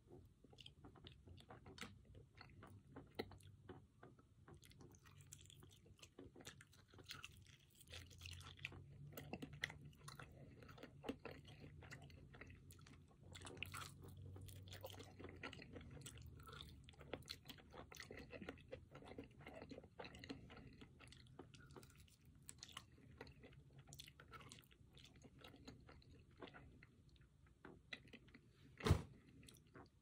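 Close-miked chewing and biting of a spiced, crusted chicken drumstick, with soft crunches and many small clicks throughout. One much louder sharp click comes near the end.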